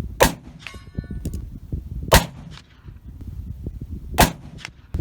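Three handgun shots about two seconds apart. About half a second after the first, a distant steel target plate rings briefly from the hit.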